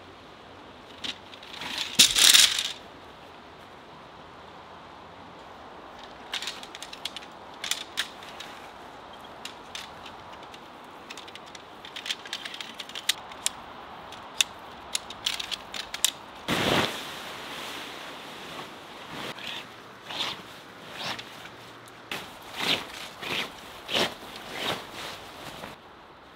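A tent being pitched by hand. There is a loud rustle of the tent bag and fabric about two seconds in. Then come light clicks and rattles as shock-corded tent pole sections are fitted together, and near the end short bursts of the tent fabric rustling as it is handled.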